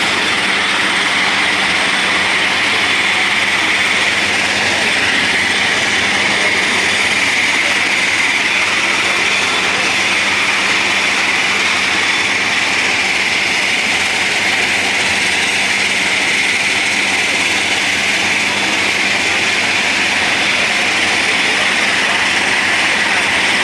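Steady, loud, unbroken aircraft engine noise on an airport apron: an even hiss strongest in the upper middle range over a low steady hum, with voices underneath.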